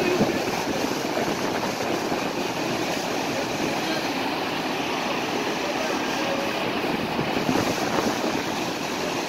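Flood-swollen mountain river rushing through rapids over rocks, a steady, even wash of noise.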